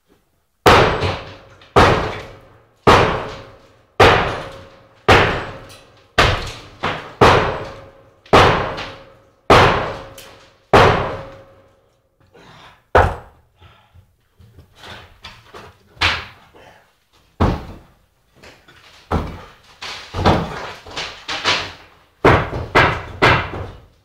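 A series of loud, sudden heavy impacts, each ringing out and dying away over about a second, coming at about one a second for the first half, then weaker and irregular, with a quicker run of hits near the end. A faint steady hum lies under the first half.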